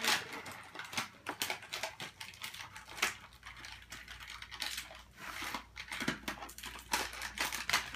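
Cardboard and plastic toy packaging rustling, with irregular crinkles and small clicks, as hands work twist ties loose to free a toy figure from its backing.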